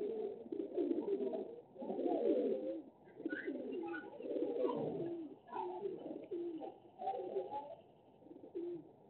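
Repeated low-pitched bird calls in short phrases, with a few brief higher chirps about three to five seconds in.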